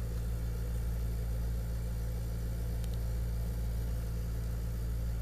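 Steady low background hum, even and unchanging, with a faint tick about three seconds in.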